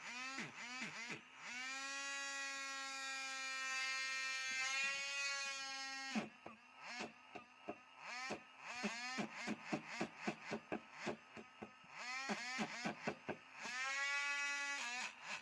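Small electric motor of a handheld power tool whining as it spins up and runs steadily for a few seconds, then pulsed on and off in rapid short bursts, then run up and held again near the end.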